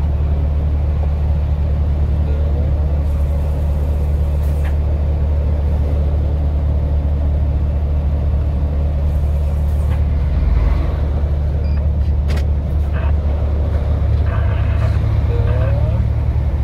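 Steady low drone of a vehicle's engine and tyre noise heard from inside the cab while driving at road speed.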